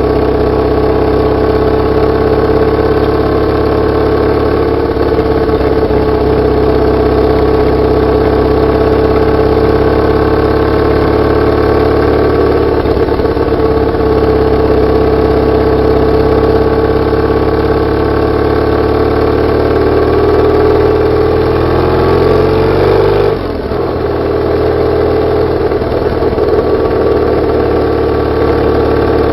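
BMW R850R's flat-twin boxer engine and exhaust running steadily, heard from a microphone just above the exhaust. About twenty-three seconds in the note climbs, then drops suddenly and settles again.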